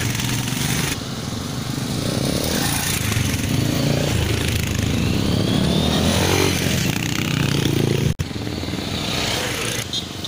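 Several motorcycles riding past one after another, their engines running with rising pitch as they rev and pass. A sudden cut about eight seconds in.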